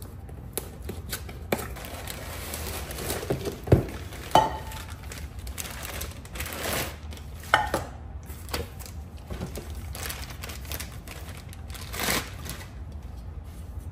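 Handling of new kitchenware and its packaging: rustling with scattered knocks and light clinks, the loudest knocks around four seconds in, at about seven and a half seconds and near twelve seconds.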